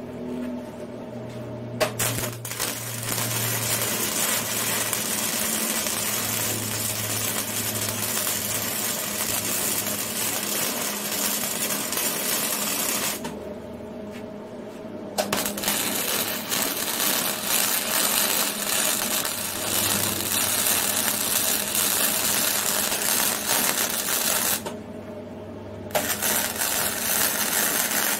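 Hobart MIG welder running flux-core wire, its arc crackling in three long welds. The first lasts about eleven seconds and the second about nine, each followed by a short pause, and a shorter third weld runs near the end.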